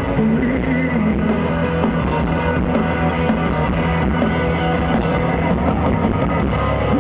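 Live rock band playing, with electric guitar to the fore over bass and drums, in a passage without singing.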